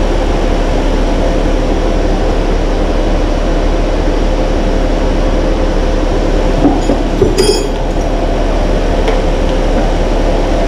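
Ford 3.5 EcoBoost twin-turbo V6 in a 2010 Taurus SHO idling steadily, a freshly installed engine warming up toward operating temperature. A short sharp clink sounds about seven seconds in.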